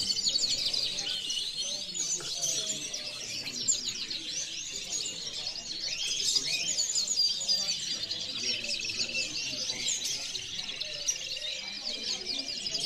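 Many caged canaries singing at once: a dense, unbroken mix of overlapping trills and chirps.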